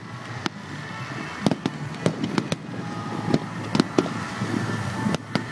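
Aerial fireworks bursting: about a dozen sharp bangs and cracks at irregular intervals over a steady background noise.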